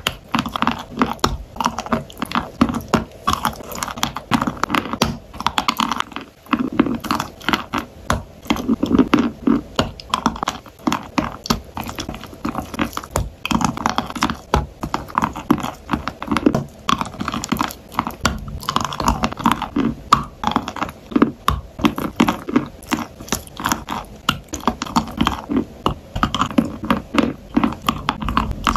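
Close-up crunching and chewing of a dry chunk of Sevryukovo chalk coated in wet clay paste: repeated bites and crunches, then wet chewing of the mouthful.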